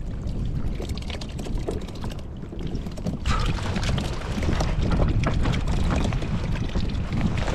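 Wind buffeting the microphone over water slapping and lapping against a plastic kayak hull on a choppy sea, with scattered small knocks throughout.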